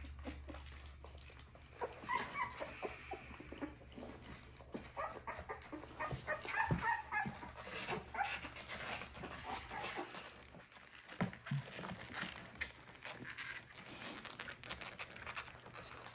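Two-week-old American bully puppies whimpering and squeaking in short, high calls, with scattered clicks and rustling around them.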